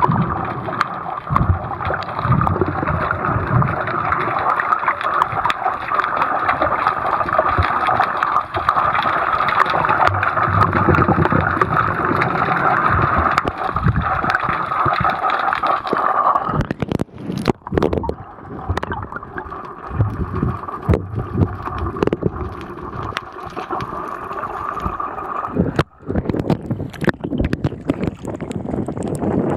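Seawater gurgling and sloshing around a waterproof camera held underwater, a dense steady rushing that changes about 16 seconds in, with a few sharp knocks just after. Near the end the camera is at the surface in choppy water.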